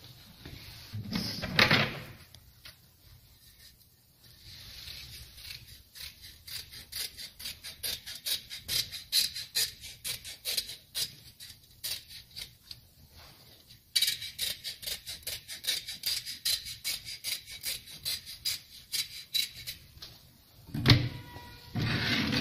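Scissors snipping through woven metal sieve cloth in quick repeated cuts, about three a second, from around six seconds in to around twenty, louder after the middle. About a second in, the loose mesh rustles loudly as it is handled.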